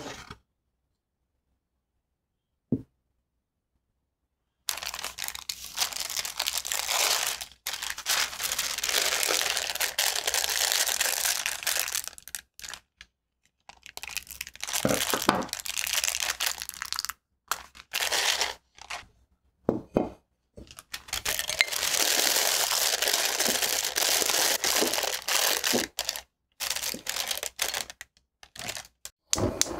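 Thin plastic piping bag crinkling and rustling in bursts with short pauses as it is handled, snipped at the tip with scissors and opened out into a cup.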